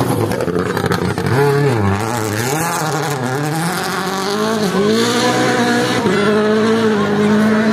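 Rally car engine at full throttle, passing close. Its pitch drops and climbs again with several quick gear changes, then rises steadily near the end as it accelerates.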